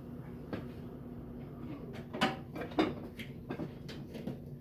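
Several sharp knocks and clicks of things being handled, the two loudest about two and three seconds in, over a steady low hum.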